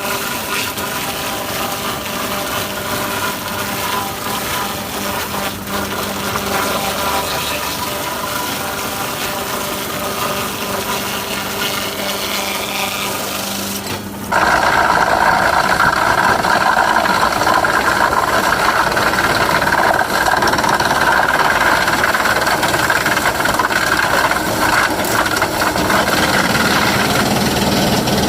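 Sawmill machinery running steadily with a hum of several tones. About halfway through it cuts abruptly to a louder, steady, higher-pitched whine of a saw working.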